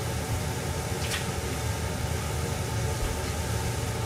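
Steady low hum with an even hiss over it, the running noise of a lit gas burner heating water in an aluminium yukihira pan that is not yet boiling. One faint tick about a second in.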